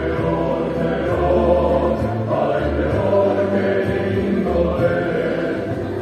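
Music with several voices singing together in long held, chant-like notes over low bass notes that shift every second or so.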